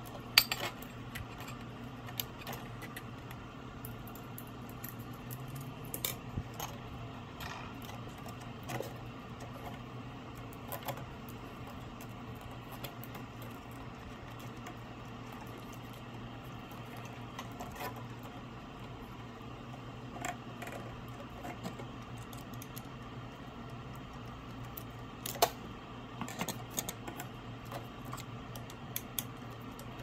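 Scattered small metal clicks and clinks of a hose clamp being handled and fitted onto a corrugated plastic drain hose, over a steady low hum. The sharpest click comes about half a second in, with a cluster of clicks near the end.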